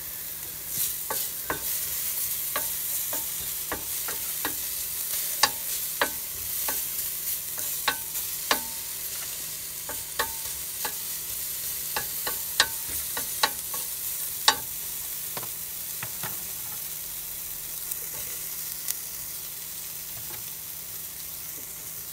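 Bacon pieces sizzling in a Ridge Monkey sandwich-toaster pan on a gas hob, a steady hiss, while a wooden utensil knocks and scrapes against the pan about once a second; the knocks thin out after about fifteen seconds.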